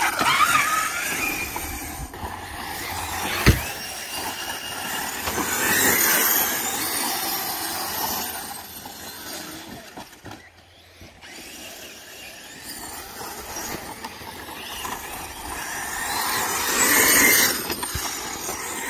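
Losi 5ive-T 1/5-scale RC truck with a Lehner brushless motor on 12S, its motor whining as it accelerates and its tyres throwing up loose sand. The sound swells twice, about six and seventeen seconds in, with a sharp thump about three and a half seconds in.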